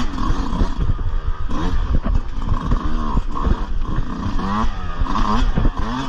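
Dirt bike engine revving up and down over and over as the throttle is worked through a tight, rough trail section, with a low rumble of wind and sharp knocks from the bike over the ground.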